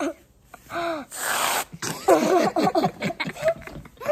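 Aerosol can of whipped cream spraying with a short hiss for about half a second, followed by children's excited squeals and laughter.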